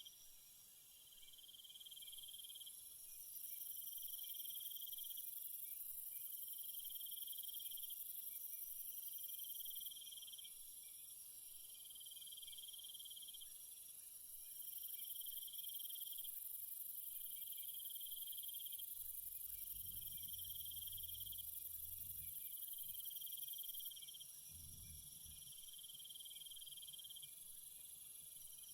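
Faint insect chirping, cricket-like: short trills repeating evenly about every second and a half to two seconds over a steady high hiss. A few brief low rumbles come in during the second half.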